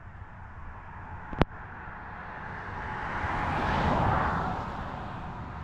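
A vehicle passing on a road nearby, its tyre noise swelling to a peak and fading away, with a single sharp click about one and a half seconds in.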